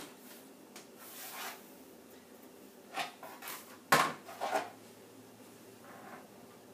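Quilted fabric being handled and rustled, with a few sharp knocks of the rotary cutter and ruler being set down on the plastic cutting mat, the loudest about four seconds in.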